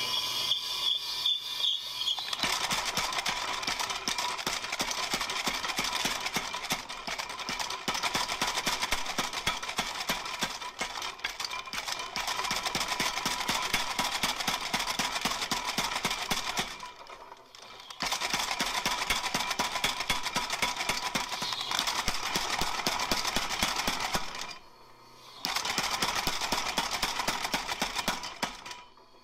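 Homemade mechanical power hammer pounding hot steel between its combo dies in fast, continuous blows. It stops briefly twice, once past the middle and once near the end.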